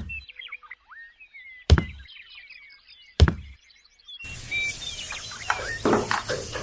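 Three sharp knocks about a second and a half apart, with birds chirping behind them. About four seconds in, the sound switches abruptly to a busier outdoor background with short animal calls.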